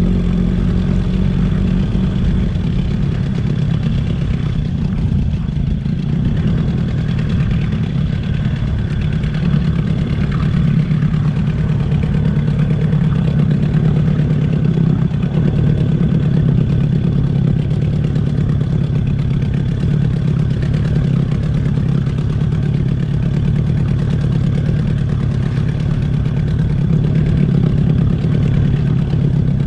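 Outboard motor of a small tiller-steered boat running steadily under way. Its note drops slightly about two seconds in, then holds steady.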